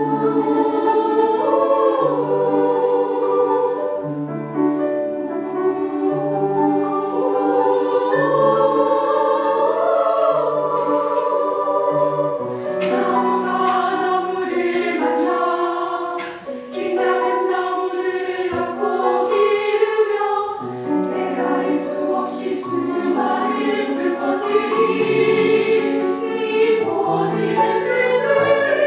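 Choir singing, several voice parts in harmony with long held notes.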